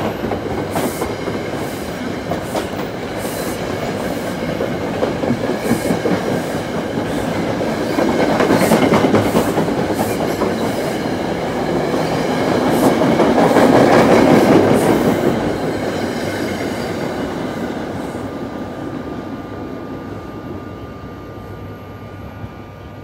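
A New Jersey Transit train of Comet passenger coaches rolling past, its wheels clicking over the rail joints. It is loudest about halfway through, then fades as the last car pulls away.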